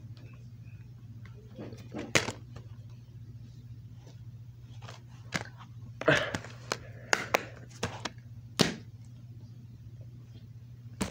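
Plastic DVD cases handled and set down on carpet: a scatter of sharp clacks and knocks, most of them between about five and nine seconds in, over a steady low hum.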